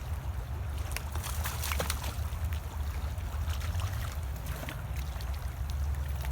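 Flowing ditch water running steadily, with a deep continuous low rumble and scattered light clicks.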